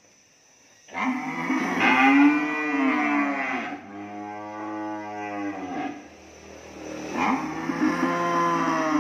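Cattle mooing: a long moo starts about a second in and runs straight into a second, lower and steadier one, then another long moo begins about seven seconds in.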